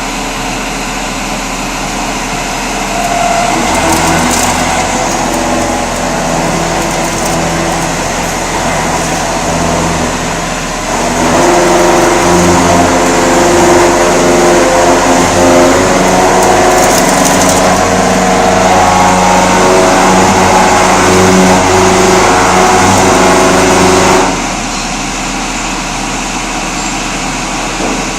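Vertical machining center milling a pocket: steady machine hum, then a few seconds in the end mill starts cutting with a pitched, shifting ringing tone. The cutting grows louder about midway and stops sharply a few seconds before the end, leaving the hum.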